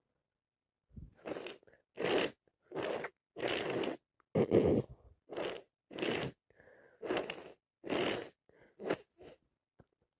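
A rapid run of about ten sneezes from a person with a head cold, one coming every second or less, starting about a second in.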